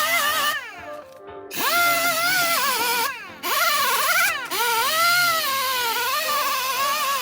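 A handheld power tool running in bursts with a high whine and hiss. Its pitch wavers under load and falls away each time it is let off, about a second in and again near three seconds.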